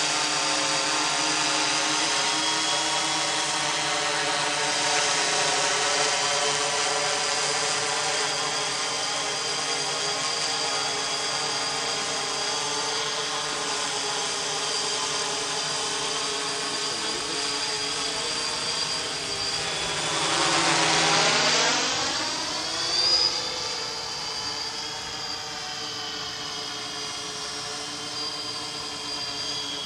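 3DR X8 octocopter's eight motors and coaxial counter-rotating propellers running in flight, a steady multi-tone whine. About twenty seconds in the pitch dips and climbs back up as the sound swells briefly.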